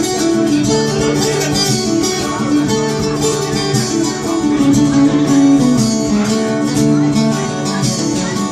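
Instrumental passage of a Turkish folk-rock song played on plucked strings, with a picked melody over held chords and no singing.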